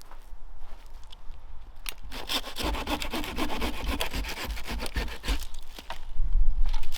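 Hand saw cutting through a piece of dead wood for firewood, a quick run of even rasping strokes that starts about two seconds in and stops about two seconds before the end.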